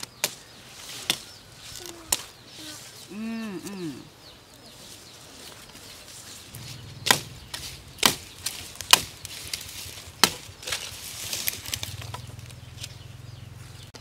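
Machete blade striking and scraping purple sugarcane stalks as they are trimmed: sharp cuts about a second apart, loudest in a run of strikes about seven to ten seconds in.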